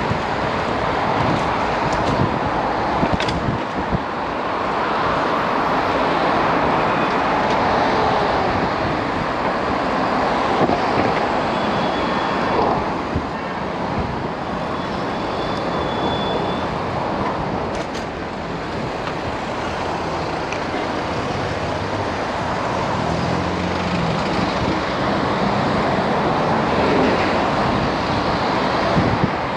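Steady noise of city road traffic, cars and other vehicles passing close by, heard from a bicycle riding among them, rising and falling a little as vehicles go past.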